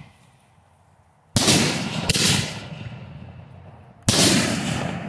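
Excalibur Platinum canister fireworks shells fired from mortar tubes, two at a time. There is a loud boom about a second and a half in, a smaller crack soon after, and another loud boom about four seconds in. Each fades off slowly.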